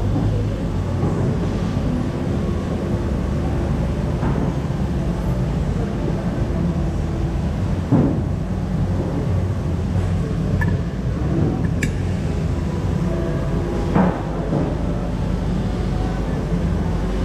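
Steady low hum of background machinery, with a light knock about eight seconds in and another about fourteen seconds in.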